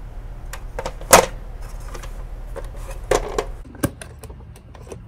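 Hard plastic clicks and knocks as a plastic cake stand and its clip-on parts are handled, with one loud click about a second in and a cluster of knocks near three seconds.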